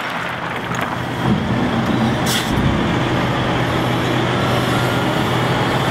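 Volvo articulated rock truck running with its dump body raised: a steady engine drone, with a short hiss a little over two seconds in.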